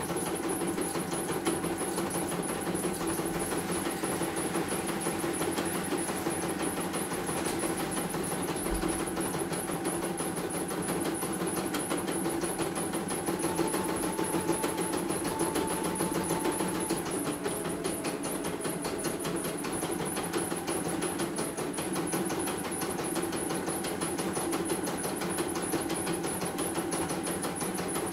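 CNY E900 computerized embroidery machine stitching steadily, its needle bar making a rapid, even run of strokes over a steady motor hum. It has a dry, rubbing mechanical noise ('keset') that the technician puts down to freshly oiled, still-dry parts and judges harmless.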